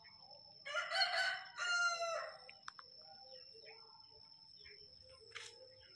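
A rooster crowing once, starting about a second in and lasting about a second and a half.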